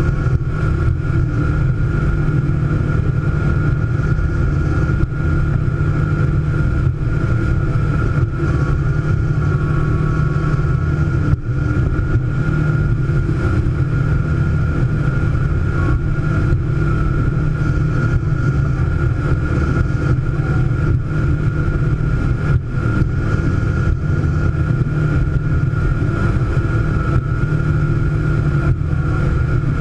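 Scarab speedboat's engine running steadily under way: a constant low drone with a thin steady whine above it.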